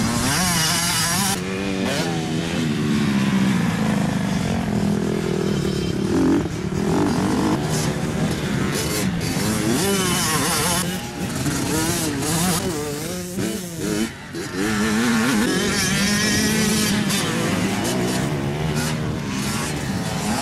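Motocross bike engine revving up and down through corners, its pitch rising and falling over and over as the rider rolls off into each turn and gets back on the throttle out of it, with a brief drop in level about two thirds of the way through.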